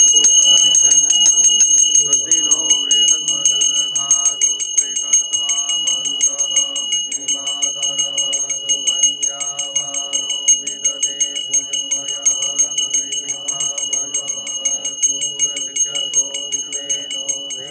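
A puja hand bell rung rapidly and without pause, its high ringing tones sounding continuously, over voices chanting Vedic mantras.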